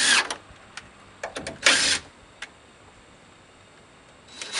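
Cordless drill driving screws into a plywood panel in two short bursts, one at the start and one about a second and a half later, with a few light clicks between.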